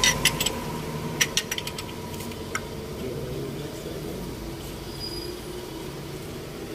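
A quick run of sharp clicks and knocks, as from tools or parts being handled during repair work on a pickup truck, then a steady low hum.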